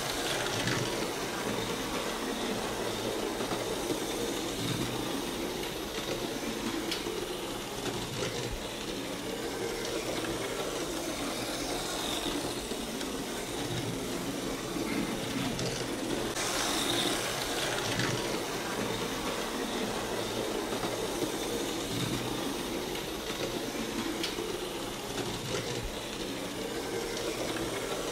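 Faller AMS slot cars' small electric motors whirring as the cars run along the plastic track, swelling at times as a car passes close.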